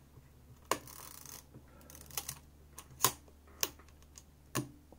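Sharp mechanical clicks from an Exakta Varex VX and its preset Carl Zeiss Jena Biotar lens being worked: a click with a short rasp about three-quarters of a second in, then a few single clicks, including a pair about half a second apart near three seconds. The pair fits the camera's two-stage release, the lens stopping down first and then the shutter firing.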